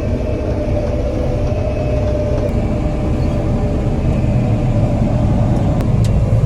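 Harvest machinery engine running steadily: a loud, even low rumble with a constant hum, without change.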